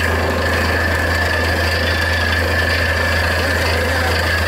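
Truck-mounted borewell drilling rig running steadily: a constant low engine drone with a steady high whine over it.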